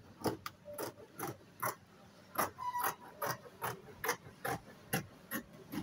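Large dressmaker's shears cutting through Ankara fabric: a steady run of crisp snips, about two or three a second, with a short pause near the middle.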